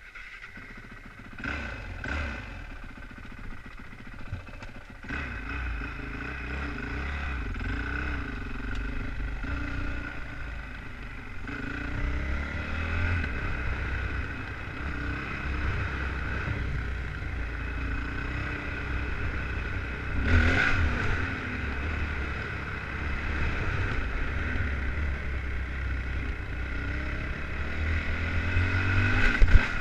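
Dirt bike engine running and revving up and down while riding along a gravel and dirt trail, with a brief louder rush about two-thirds of the way through.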